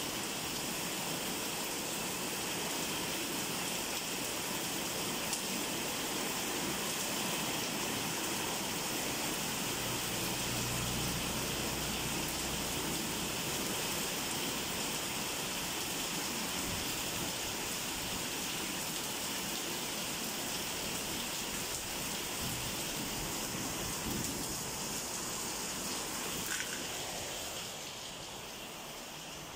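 Heavy rain falling steadily, an even hiss, with a brief low rumble about ten seconds in; it becomes quieter near the end.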